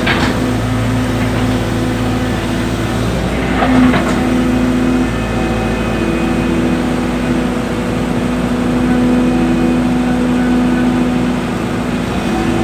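Hydraulic excavator's diesel engine running steadily under load while digging soil, with a brief louder burst of noise about four seconds in.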